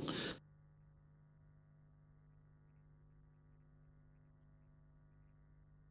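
Near silence with a faint, steady electrical hum from the recording. The room sound cuts off about half a second in.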